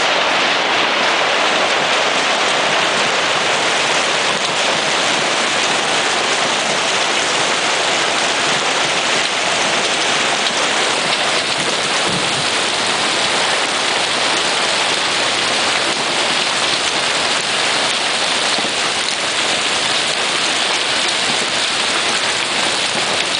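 Hailstorm: hailstones pelting down heavily on the ground in a dense, steady hiss.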